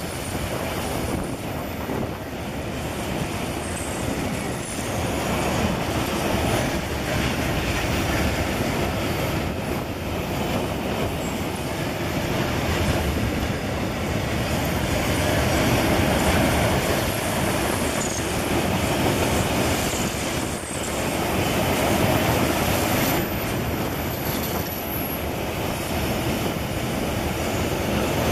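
Iron-ore train wagons rolling past close by: a continuous noise of steel wheels running over the rail, with a few brief, faint high wheel squeals.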